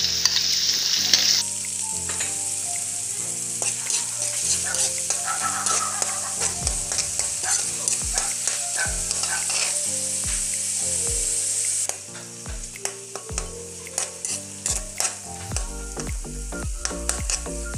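Chopped onion and garlic sizzling in hot oil in a metal wok, with a metal ladle scraping and clicking against the pan as they are stirred. The sizzle drops quieter about twelve seconds in.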